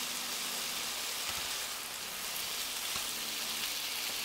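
Diced chicken pieces sizzling in a frying pan on the hob: a steady, dense hiss of frying.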